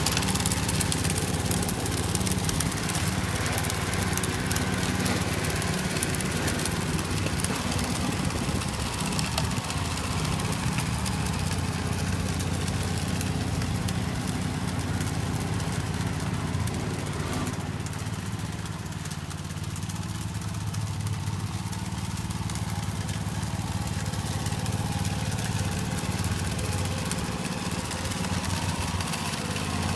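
Small engine of a ride-on spreader running steadily, dipping slightly in level about two-thirds of the way through.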